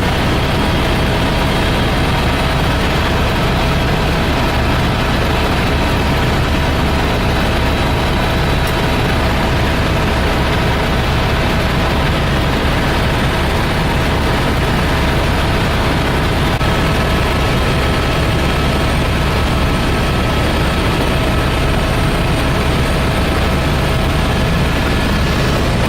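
Helicopter in steady flight, heard from on board: a constant loud rotor and engine drone with a deep low rumble and a steady whine over it.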